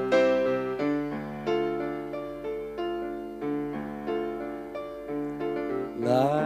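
Piano playing a band's opening chords, each chord struck and held, roughly one every half second to second. Near the end a short rising swoop of pitch sweeps up over the chords.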